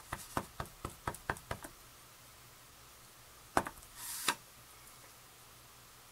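Clear acrylic stamp block tapped quickly and repeatedly against a Stampin' Up! ink pad, about seven light clicking taps at roughly four a second, inking the stamp. A little later comes one louder knock and then a brief scrape ending in a click.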